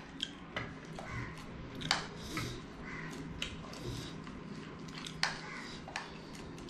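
Metal spoons clinking and scraping against plates while eating, with several sharp clinks; the loudest come about two seconds in and just after five seconds.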